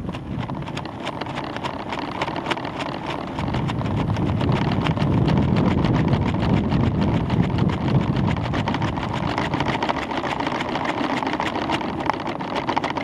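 Wind buffeting the microphone of a camera on a weather-balloon payload in flight: a rumbling rush of air with a dense crackle of small clicks, growing louder about three and a half seconds in.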